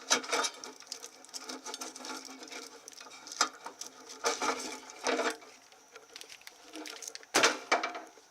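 Truck wiring harness being pulled and handled: irregular rattling, rustling and clicking of the wires and their plastic clips and loom, with a louder clatter about seven and a half seconds in.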